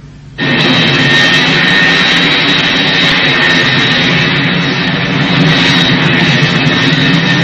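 Jet airliner's engines running, a steady high-pitched whine over a rumble, starting abruptly about half a second in.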